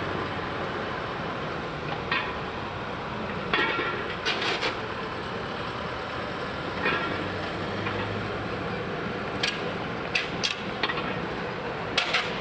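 Heavy diesel trucks running steadily as decorated trucks roll in, with about a dozen short, sharp clicks and clanks scattered through.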